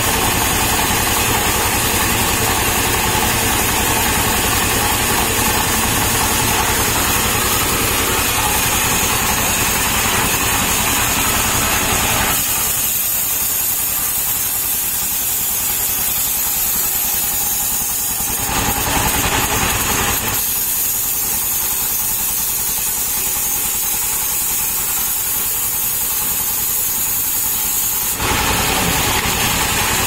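Stationary engine running steadily, driving a band sawmill as a palm trunk is fed through the blade. The lower part of the sound drops away for two long stretches in the middle.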